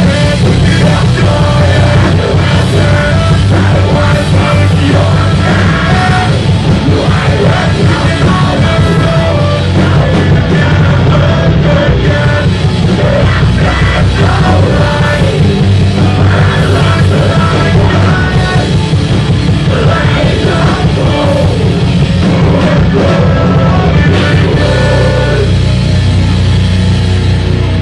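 Live rock band playing loudly, with a singer on microphone.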